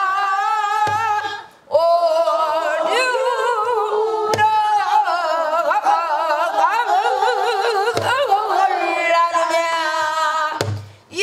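Female pansori singer singing long, wavering melismatic lines with heavy vibrato, breaking briefly for breath twice, while striking a buk barrel drum about every three and a half seconds.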